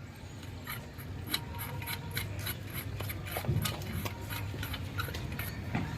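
Light metallic clicks and ticks, irregular and several a second, from a wrench being worked on a car's wheel nuts to loosen them, over a steady low hum. The nuts are still tight.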